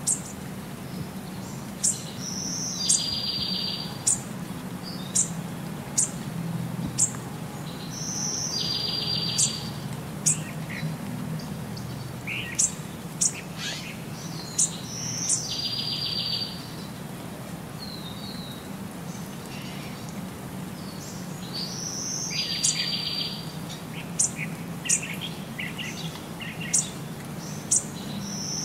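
Birdsong ambience: short, high chirps and a buzzy trill that comes back about every six to seven seconds in the same pattern, over a steady low hum.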